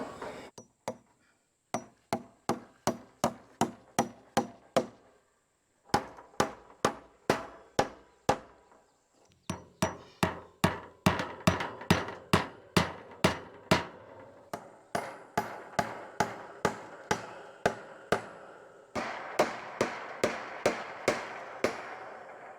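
Hammer driving fence staples to fasten wire hog panel to wooden fence boards: sharp, evenly paced strikes about two a second, in several runs with short breaks between them.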